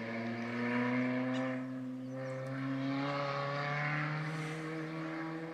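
Chevrolet Cobalt SS with its electric exhaust cutout open, heard from far off across the canyon: the engine note climbs under hard acceleration, drops at a shift about a second and a half in, climbs again and then settles lower near the end.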